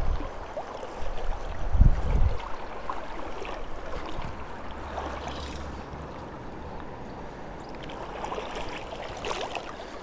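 Fast river water gurgling and rushing around the wading angler, with a low buffeting rumble of wind on the microphone in the first two seconds.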